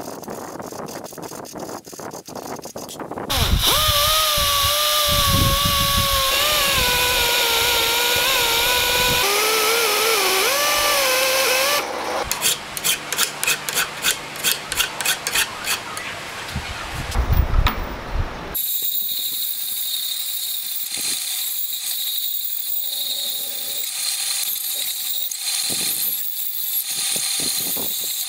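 Hand file strokes on a mild steel block in a vise, then a power tool running with a whine that wavers in pitch under load, then quick, even file strokes about two a second. About two-thirds of the way in, a bandsaw starts cutting the steel with a steady high hiss.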